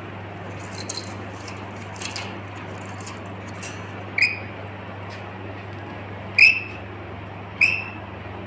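Pet lory (a small parrot) giving three short, squeaky calls, each sliding down in pitch, with a few light clicks before them, over a steady low hum.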